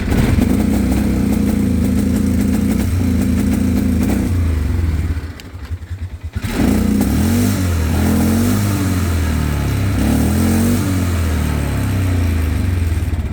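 Polaris Sportsman 500 HO ATV's single-cylinder four-stroke engine running, nearly dying about five seconds in with a second or so of sputtering, then picking up again and running unevenly with a wavering pitch. This is the bad misfire it has whenever the CDI box's black kill wire is connected.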